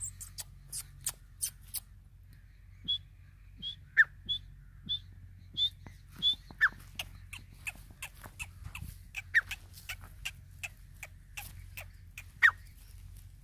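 Grey francolin calling softly: a run of short high chirps, about one every two-thirds of a second, broken by four sharp falling whistles, the loudest about four seconds in and near the end, with scattered short clicking notes between.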